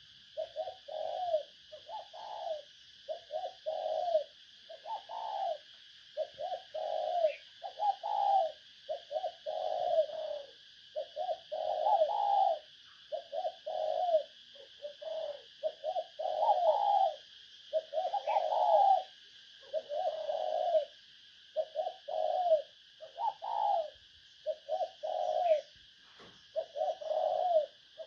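Spotted dove cooing steadily, a decoy bird's lure call: short low coo phrases repeated about once a second, over a faint steady high hiss.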